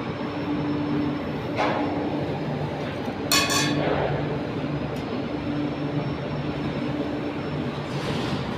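Steady industrial hum and rumble of ferroalloy furnace plant machinery, with a knock under two seconds in and a ringing metallic clang about three and a half seconds in.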